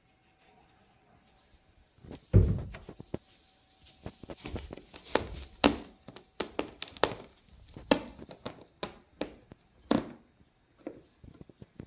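Irregular thuds and knocks of cat boxes and baskets being bumped and moved, starting about two seconds in, with the loudest thud first.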